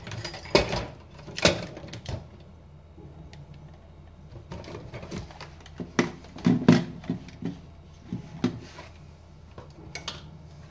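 Handling noise of unboxing: cardboard box flaps and a plastic hand-blender motor unit knocked and shuffled, with a string of sharp clunks and a cluster of knocks about six seconds in as the motor unit and its cord are set down.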